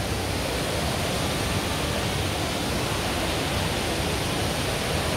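Steady rushing of Jewel Changi's Rain Vortex, a tall indoor waterfall pouring from the dome into its pool.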